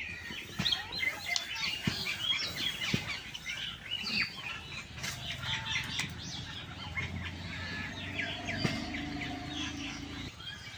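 Small birds chirping busily and continuously, with a few faint clicks in the first few seconds. A low steady hum joins about halfway through and stops shortly before the end.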